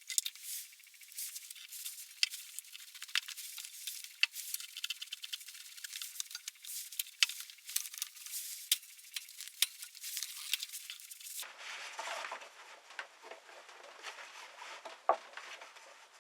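Many light, irregular clicks and clinks, like small hard parts and tools being handled. The sound is thin with no low end, and it turns fuller about eleven seconds in.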